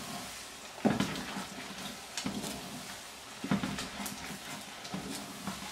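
Wooden spoon stirring moist ground squash-seed mash (mbika) in a stainless steel saucepan, giving a handful of scrapes and knocks against the pan about a second apart, the first one about a second in the loudest.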